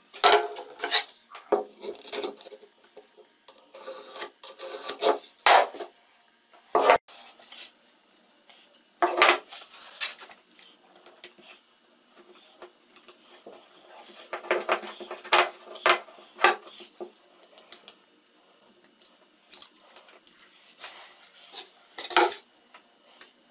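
Hands working a wooden block and strips of tape on a workbench: a string of short scrapes, rubs and knocks as the block is set down and turned and the tape is peeled and pressed on, with quiet gaps between.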